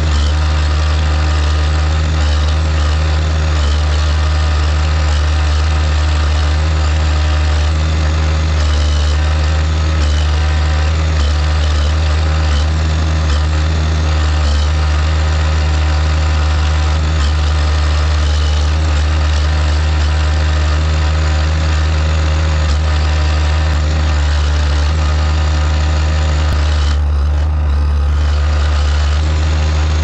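Farm loader tractor's diesel engine running steadily, heard from close by at the hood near the exhaust stack, while the tractor carries round hay bales on its front loader.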